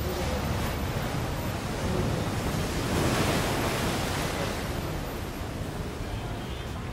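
Rushing wash of surf that swells to a peak about three seconds in and then eases back, like a wave breaking and drawing away.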